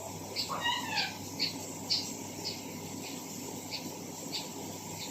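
Small backyard birds calling: a short, high chirp repeated about twice a second, with a brief twittering call that slides up and down in pitch near the start.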